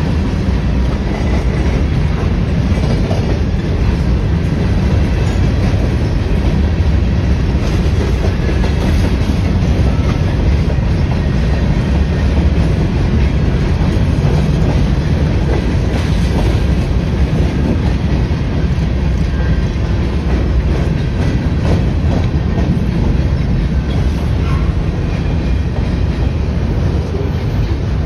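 Freight train's covered hopper cars and then autoracks rolling past: a steady rumble of steel wheels on rail with scattered clicks over the joints.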